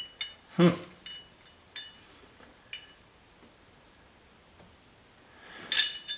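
Metal door-handle parts clinking and knocking as they are handled: a loud knock with a short ring about half a second in, a few small metallic clicks, and a rattling scrape near the end.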